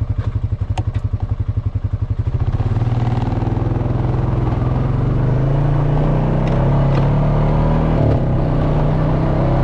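Honda FourTrax Foreman ATV's single-cylinder engine idling with an even, fast pulse, then revving up about two and a half seconds in as the quad pulls away and running steadily under way.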